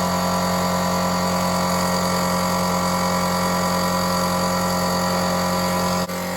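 Electric air compressor running steadily with a loud hum, pumping up its tank. The level drops a little shortly before the end.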